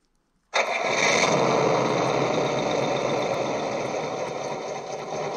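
Simulated truck engine idling, played by an RC model's Das Mikro TBS Mini sound module through its small speakers. It comes in abruptly about half a second in and then runs steadily.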